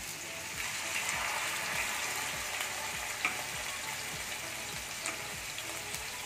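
Seer fish steaks coated in recheado masala sizzling in hot oil in a non-stick pan, a steady hiss with scattered small pops and crackles. The sizzle picks up slightly about a second in as a fresh piece is laid into the oil.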